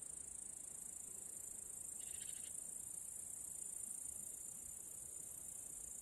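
Crickets trilling in one steady, high-pitched chorus, with a faint short chirp about two seconds in.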